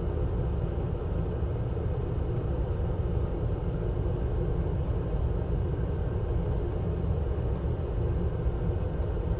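Hot air rework station blowing steadily on the iPad mini 2's charging flex connector to melt its solder, a continuous even whoosh of airflow.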